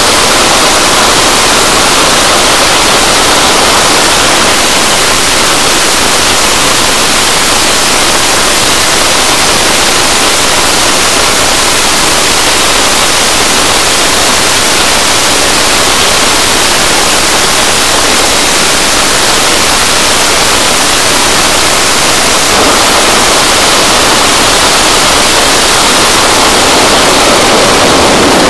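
Rolls-Royce Avon turbojet of an English Electric Lightning F.6 running at full power with the afterburner lit. The result is a steady, very loud rushing noise, heavy in the highs and thin in the bass.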